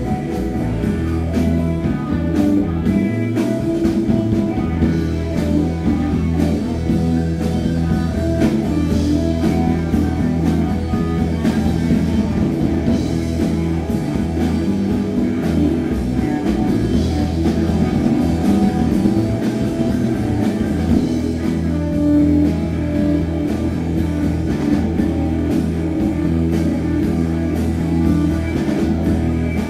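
Rock band playing live: electric guitar and bass guitar on a heavy stoner-rock riff over a drum kit.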